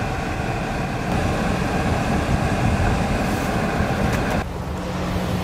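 Steady drone of an idling vehicle engine close by, holding several constant tones. About four and a half seconds in, most of it drops away suddenly, leaving a lower steady hum.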